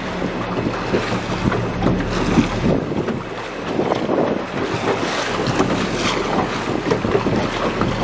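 Wind rushing over the microphone and water splashing along the hull of a moving small boat, with a low steady hum under it for the first two seconds or so.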